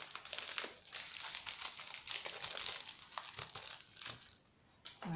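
Clear plastic packaging of a set of metal cutting dies crinkling as hands handle and press the packet, going quiet for a moment near the end.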